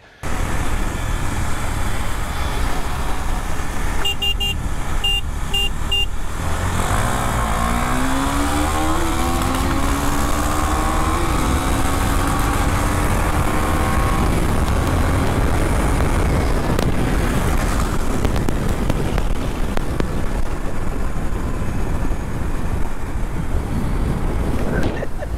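KTM Duke 390 single-cylinder motorcycle running at speed under a steady rush of road and wind noise. A quick series of about six short horn beeps comes around four to six seconds in. About eight seconds in the engine note rises as the bike accelerates, then holds steady.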